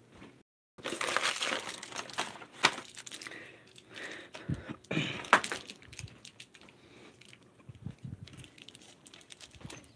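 Rustling and crinkling handling noise with scattered sharp knocks and clicks, loudest in the first half and quieter after, as a handheld phone camera is carried and moved about.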